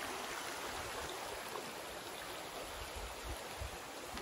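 Shallow, clear stream running over stones, a steady rush of water. A few soft low thumps come about three seconds in.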